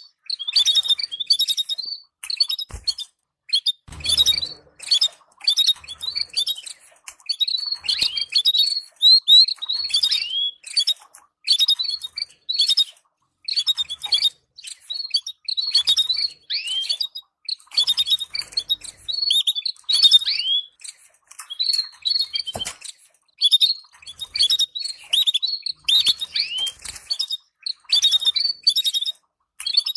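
Canaries chattering in rapid clusters of short high chirps that repeat with brief pauses, with a few soft knocks in between.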